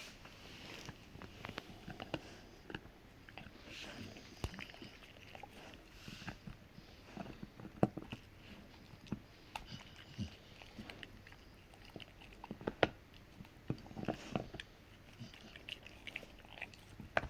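A Rottweiler chewing a hard cow-hoof treat: irregular gnawing and crunching bites, with two sharper, louder cracks about halfway and about three-quarters of the way through.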